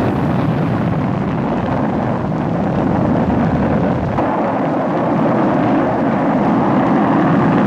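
Rocket engines at liftoff: a loud, dense, steady noise of rushing exhaust with no clear pitch, holding at an even level as the rocket climbs.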